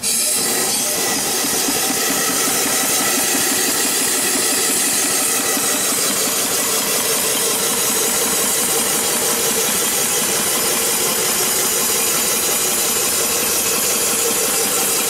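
Small single-cylinder steam engine (1.87-inch bore, 2-inch stroke) running fast on steam from its vertical boiler, a rapid exhaust chuff under a loud steam hiss. It starts abruptly as the steam is let in.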